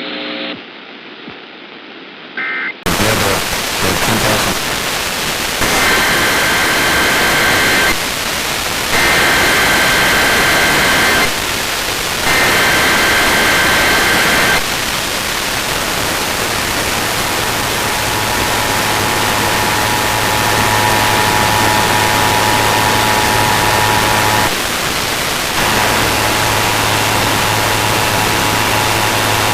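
Heavy radio static cuts in suddenly about three seconds in; faint under it come three short bursts of warbling data tones, an Emergency Alert System SAME header sent three times. From about halfway the steady two-tone EAS attention signal sounds through the static, dropping out briefly near the end.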